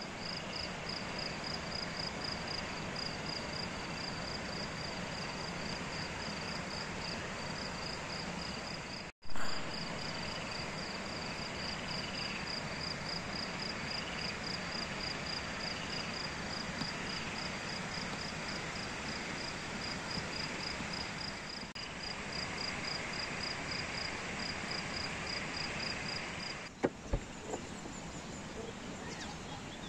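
Night ambience: a cricket chirping steadily, about five high pulses a second, over a steady hiss of outdoor background noise. The sound cuts out briefly about nine seconds in, and a few sharp clicks come near the end.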